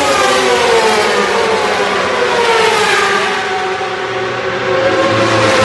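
A 1000cc World Superbike race motorcycle passes at speed down the main straight, its engine note falling in pitch as it goes away. Near the end the next bike's engine swells as it approaches.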